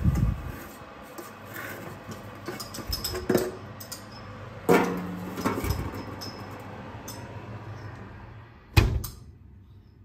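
A stainless steel lidded pot set down on a metal oven tray, with a metallic clank and brief ringing and a few knocks and rattles of the tray. Near the end the oven door shuts with a loud thump.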